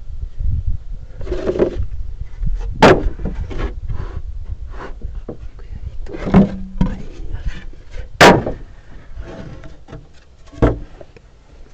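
Hand carpentry on a timber frame: four sharp wooden knocks spaced a couple of seconds apart, with lighter knocks and handling of wood between them.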